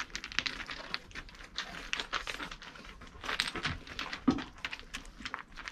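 Goat kid sucking milk from a feeding bottle: a quick, irregular run of wet smacking and slurping clicks at the nipple.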